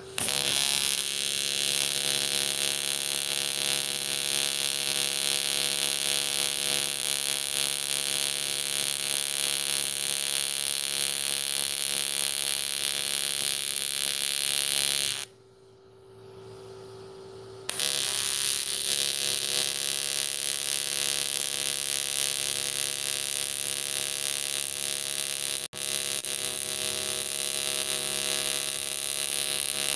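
AC TIG welding arc on aluminium pipe, a steady electrical buzz. It cuts out about halfway through for a couple of seconds, then strikes again and runs on, with a momentary break a few seconds later.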